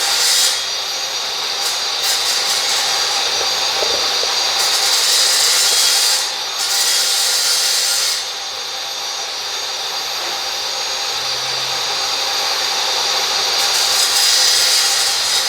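A power tool running steadily with a rasping hiss. Its highest, sharpest part drops away and comes back several times.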